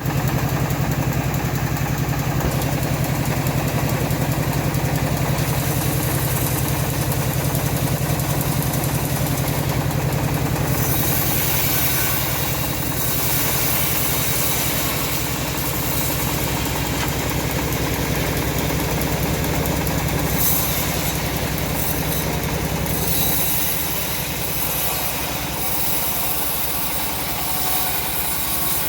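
Engine-driven homemade bandsaw mill running steadily with a constant low drone, sawing teak; the higher sound of the cut shifts about a third of the way in and again about two-thirds in.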